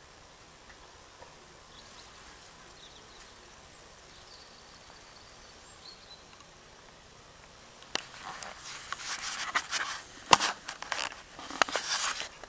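Faint steady outdoor hiss, then from about eight seconds in a run of close clicks, knocks and rustles, with the loudest sharp knock about ten seconds in.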